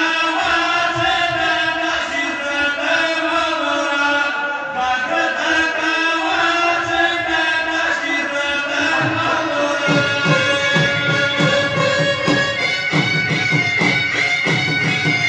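Live Pashto saaz music: clarinets playing an ornamented melody of held notes, with a dhol drum coming in strongly with quick, dense beats about nine seconds in.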